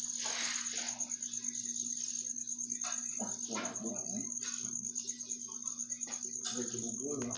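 A cricket chirping in a steady, fast-pulsing high trill, over a low steady hum, with short soft brushing noises now and then.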